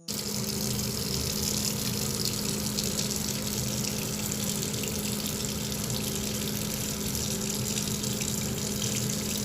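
Steady running-water noise with a low, even hum underneath, unchanging throughout.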